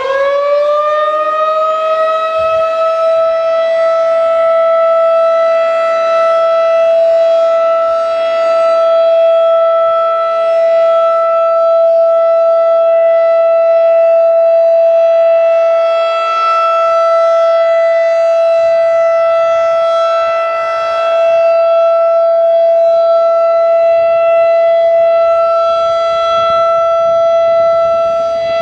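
Federal Signal 2001-SRN single-tone rotating warning siren sounding the steady alert signal for a test: its pitch finishes climbing about a second in, then holds steady while the loudness swells and dips every few seconds as the rotating horn sweeps around.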